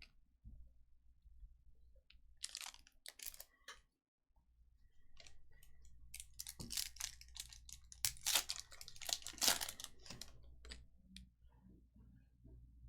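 Trading card packs and cards being handled: crinkling and rustling of wrappers with light clicks and sliding, in two spells, the busier one from about six to ten seconds in.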